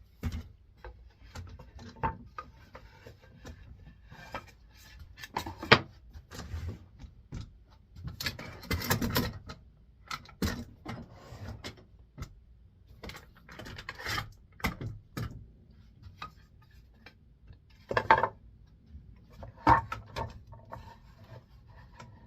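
Two planed boards and clamps being handled and fitted together on a workbench: scattered knocks and clicks of wood and hardware, a longer scraping rub around the middle, and a few sharper knocks near the end.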